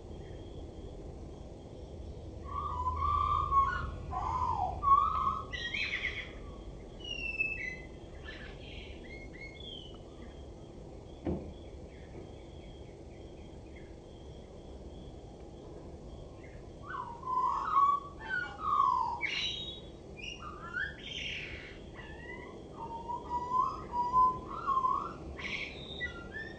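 Male common blackbird singing: two song phrases of low, mellow fluted warbling, each broken by higher, squeakier twittering notes, one a few seconds in and another after a long pause lasting to near the end.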